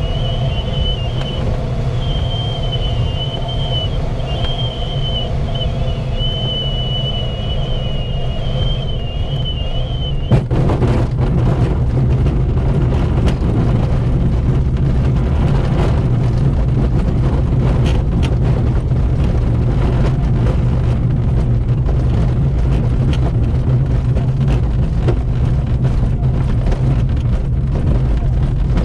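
Glider landing: airflow rushing steadily in the cockpit, with a high wavering tone during the approach. About ten seconds in, the wheel touches down with a jolt. The glider then rolls out over grass, rumbling and rattling with many small knocks.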